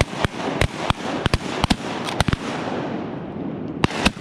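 Shotguns firing in a rapid volley from several guns: about a dozen sharp shots in the first two and a half seconds, then a pause and two more shots near the end.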